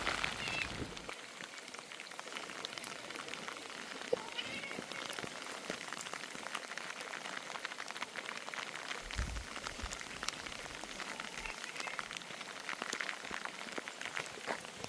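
A domestic cat meowing a few times, about four seconds in and again near thirteen seconds, over rain pattering steadily.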